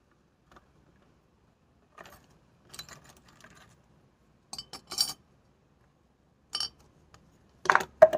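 Flower pots being handled and set down: a few scattered clinks and knocks, with a quick run of sharper knocks about halfway and the loudest pair near the end.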